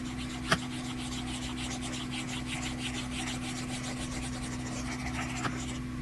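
Pastel scribbled rapidly on paper: quick back-and-forth scratching strokes, about six or seven a second, as a patch of colour is filled in. There is a single click about half a second in, and a steady low electrical hum underneath.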